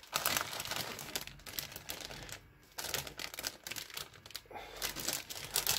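Clear plastic bags around model-kit runners crinkling and rustling as they are handled and lifted, with small clicks of the plastic parts, and a short pause about halfway through.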